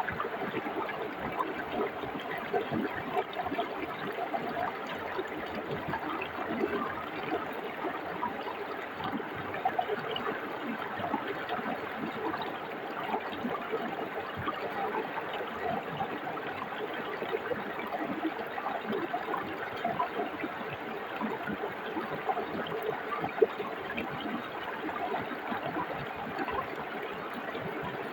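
Forest brook babbling over stones: a steady, bubbling rush of running water, with one brief louder pop late on.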